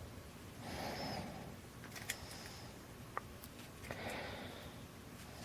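Faint, quiet handling of a padlock in a vise: a few small metallic clicks as a shim is worked at the plug and does not go in, with two soft breaths.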